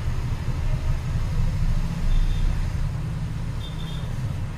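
Hot air rework blower running steadily, a low rush of air, as it heats an eMMC chip until its solder melts for removal.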